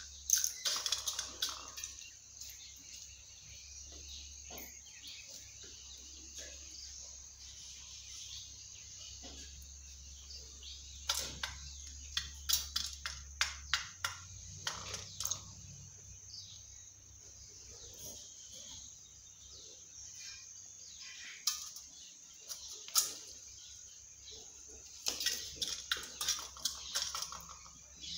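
Runs of quick, sharp clicks from a peacock's beak pecking against a small metal tin, in several clusters separated by stretches of faint background noise.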